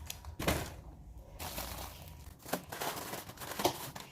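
Plastic packaging crinkling and rustling as groceries are handled while a fridge is stocked. There is a short rustle about half a second in, then steady crinkling from about a second and a half in, with two brief light knocks.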